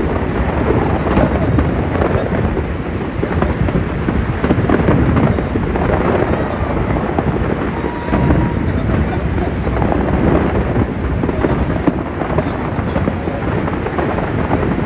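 Many fireworks going off at once, a dense, continuous run of bangs and crackles with no pause between them.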